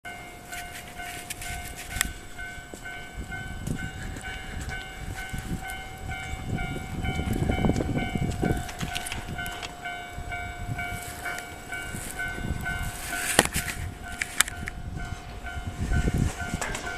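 Railway level-crossing warning bell ringing in an even, repeating two-tone pattern, over the low, uneven rumble of a train, which swells twice. A sharp knock sounds about two seconds in, and a louder one near the end.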